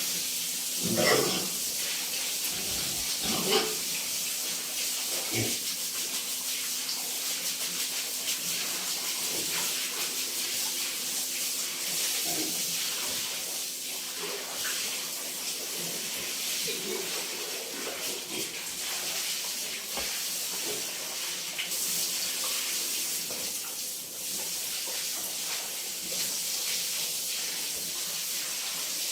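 Steady hiss of running or spraying water. A couple of short, louder sounds stand out about a second and three and a half seconds in.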